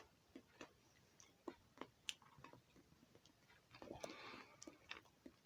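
Near silence with faint, scattered small clicks and taps, and a brief soft rustle about four seconds in.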